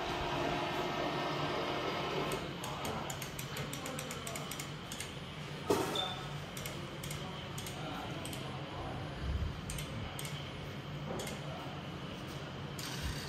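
Light mechanical clicks from operating a laser repair machine: a steady hum drops away about two seconds in, then a quick run of clicks with one louder click, followed by scattered single clicks.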